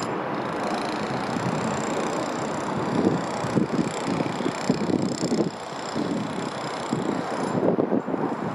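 Twin-engine jet airliner passing low overhead and drawing away: a steady jet engine rush with uneven low rumbling through the middle.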